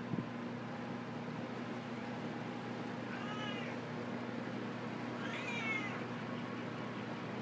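Sears Kenmore Roll-O-Matic box fan with a 1/6 hp Westinghouse motor running steadily on medium speed, a low hum under the rush of air. A cat meows twice over it, about three seconds in and again near six seconds.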